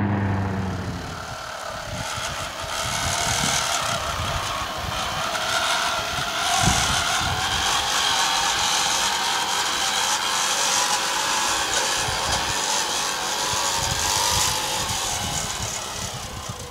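Garden-railway model locomotives working a rotary snowplough through snow give a steady whirring, hissing mechanical noise, which fades near the end.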